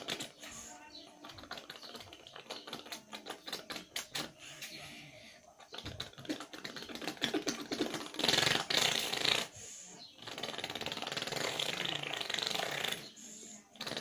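A boy imitating a tractor engine with his lips: a rapid sputtering put-put of clicks, then louder, longer buzzing revs about eight seconds in and again from about ten and a half seconds.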